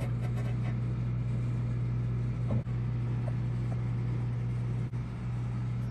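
Steady low machine hum, as of shop equipment running, that stops right at the end.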